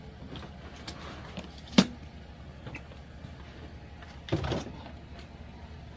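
A sharp knock about two seconds in, then a brief rougher noise a little after four seconds, over a low steady hum.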